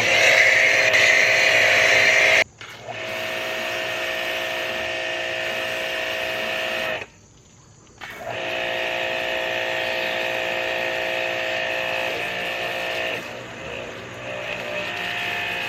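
Small 1500 psi electric pressure washer running with a steady whine and spray hiss as it pushes soap through a soap cannon. It cuts out twice, briefly about two and a half seconds in and for about a second around seven seconds in, and starts up again each time.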